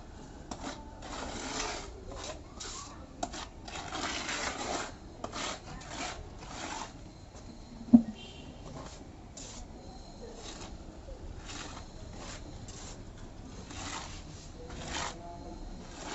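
Putty blade scraping and rubbing over a wall's rustic texture coating in a series of irregular strokes, with one sharp knock about eight seconds in.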